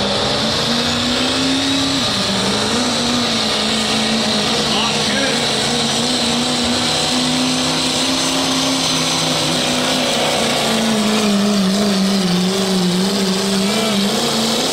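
Turbocharged diesel pickup running hard under load while pulling the sled, its engine note wavering up and down with a high turbo whistle above it.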